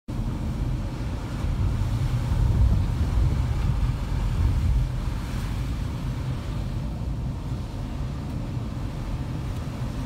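Low, steady rumble of a car's engine and tyres heard from inside the cabin while driving on a wet, slushy road, a little louder in the first half.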